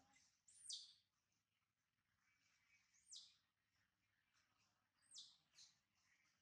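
Faint, high-pitched squeals from a newborn macaque, three of them about two seconds apart, each sliding down in pitch: distress crying.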